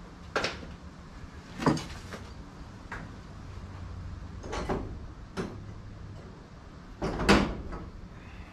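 Irregular knocks and clunks of objects being handled, moved and set down, about six in all, the loudest about seven seconds in.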